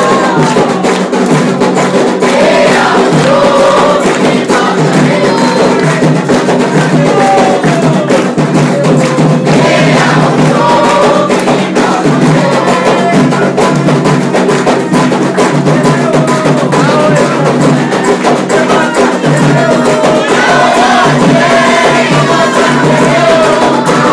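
Candomblé ritual song: a group of voices singing together over steady, fast drumming on atabaque hand drums with other percussion.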